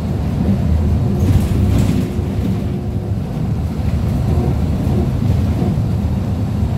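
MAZ 103.485 city bus with a Mercedes-Benz engine and Allison automatic gearbox, heard inside the cabin near the rear door while driving: a steady low engine and road rumble with a thin tone that comes and goes. A brief burst of hiss about a second and a half in.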